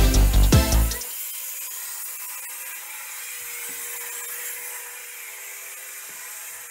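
Background music with a heavy bass beat for about the first second, then an angle grinder with a dry-cut diamond disc cutting porcelain floor tile: a steady high hiss with a constant whine underneath.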